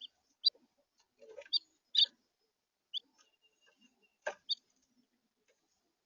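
House finches giving short, scattered chirps, about half a dozen with gaps between them, and a knock among them.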